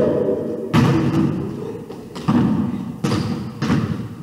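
A basketball bouncing on a hardwood gym floor: four irregularly spaced thuds, each ringing on in the echo of the big hall.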